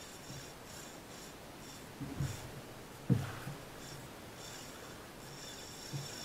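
A man breathing hard and giving short grunts of effort while pumping a heavily bent jigging rod against a big fish. The loudest grunt comes about three seconds in.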